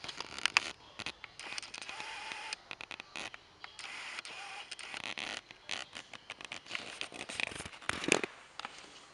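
Irregular rustling and scraping in short bursts, with a few sharp clicks; the loudest come about half a second in and a little past eight seconds in.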